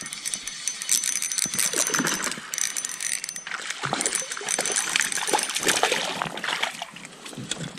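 Hooked rainbow trout thrashing and splashing at the water's surface as it is reeled in close to the bank, in irregular bursts.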